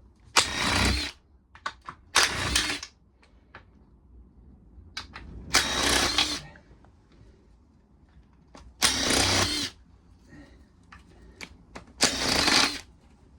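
Handheld power driver run in five short bursts of under a second each, backing bolts out of a small lawnmower engine, with small clicks of metal parts and tools between the bursts.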